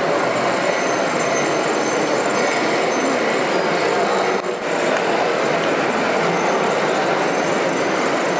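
RC model mobile screening plant running: a steady mechanical whir and hiss with faint high-pitched motor whines, broken only by a brief dip about four and a half seconds in.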